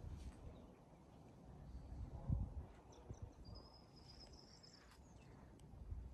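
Faint wind buffeting the phone's microphone in gusts, loudest about two seconds in, with a thin high-pitched call held for about a second a little past the middle.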